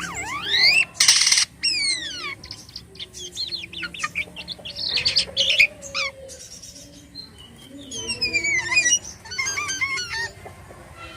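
Jalak kapas starling singing a long, varied song: sweeping whistles that glide up and down, interleaved with harsh rasping notes and quick chattering phrases.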